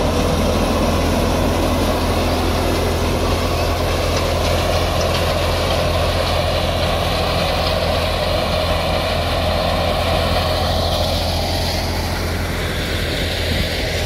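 Tractor-driven wheat thresher running steadily as wheat is fed through it, over the steady drone of the tractor's diesel engine powering it.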